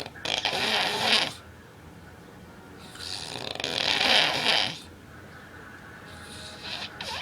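A man snoring heavily, severe snoring. Long, noisy snores come about every three and a half seconds: one ends a little over a second in, a full one falls in the middle, and another starts near the end, with quieter breathing between.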